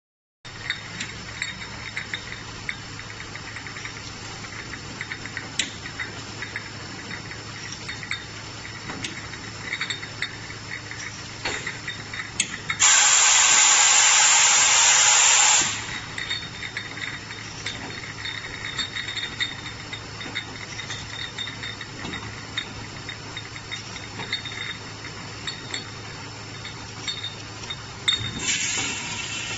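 BXGF14-12-4 beer bottle filling machine running, glass bottles clinking and knocking in its star wheels over a steady hum. A loud hiss sounds for about three seconds near the middle, and another starts near the end.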